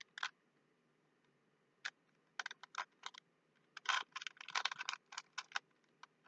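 Rubik's cube layers being twisted: a run of quick plastic clicks and clacks, starting about two seconds in and bunching into rapid flurries in the middle.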